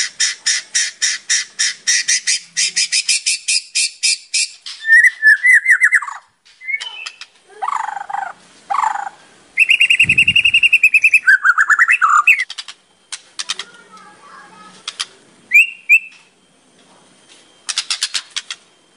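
White-rumped shama (murai batu) singing a varied, mimicry-packed song. It opens with a dry, fast chatter of about four strokes a second for the first four seconds or so. A string of different whistled and buzzy phrases follows, including a rattling trill held for over a second about ten seconds in and another quick rattle near the end.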